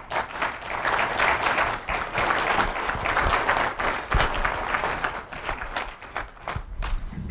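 Audience applauding: full clapping at first, thinning to scattered claps near the end.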